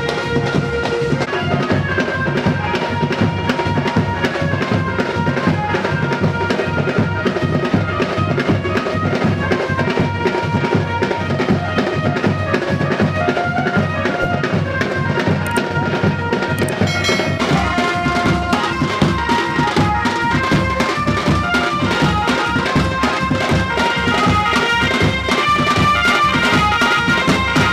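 Loud music with steady, dense drumming under a melody line.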